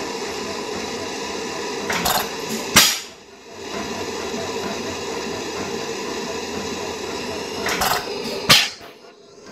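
1910 Allan Brothers 3 hp continuous lamp kerosene engine running after a gudgeon pin bush repair, with a steady mechanical clatter and hiss. Twice, about six seconds apart, a short rush of hiss ends in a sharp, loud bang.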